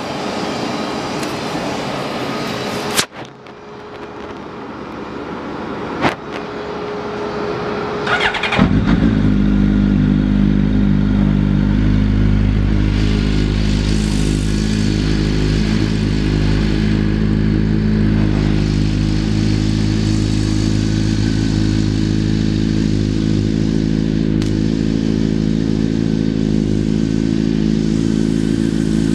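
Honda CBR1100XX Blackbird's inline-four engine cranking briefly and catching about eight seconds in, after a few sharp clicks, then idling steadily.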